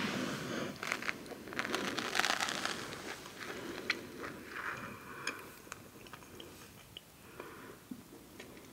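Close-miked eating of crunchy salty snacks: repeated biting and crunching, loudest in the first three seconds, then softer chewing with small mouth clicks.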